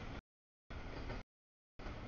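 Rumble and wheel noise of a double-stack container freight train rolling past. The sound is cut into short stretches by audio dropouts and goes completely dead twice, for about half a second each time.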